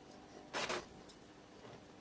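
Quiet handling noise from soldering a wire onto a small circuit board held in a bench vise: faint room tone and one short scraping rustle about half a second in.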